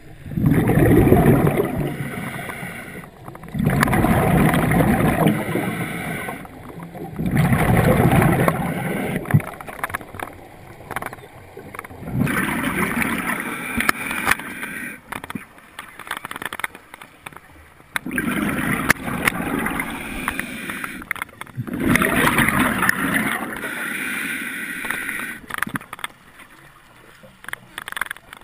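Scuba diver's exhaled bubbles heard underwater: long bubbling bursts from the regulator every few seconds, with quieter gaps between breaths.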